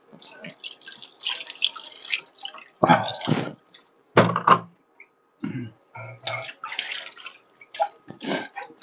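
Dishes being washed by hand in a kitchen sink: water splashing and dripping, with dishes knocking against each other, in irregular bursts.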